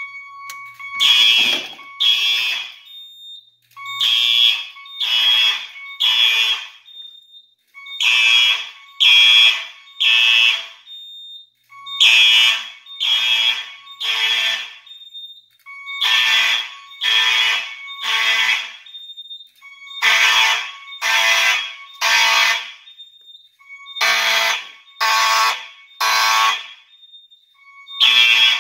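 Simplex 4903 horn strobes, one electronic and one electromechanical, sounding together in a code-3 temporal pattern. Each group is three short blasts, followed by a pause, and the group repeats about every four seconds.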